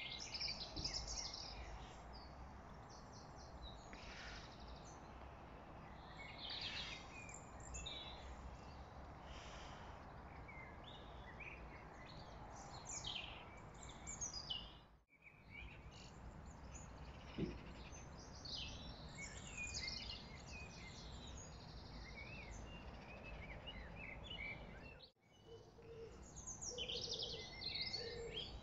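Songbirds singing and chirping, many short trills and calls, over a faint low background rumble. The sound cuts out briefly twice, about halfway and near the end.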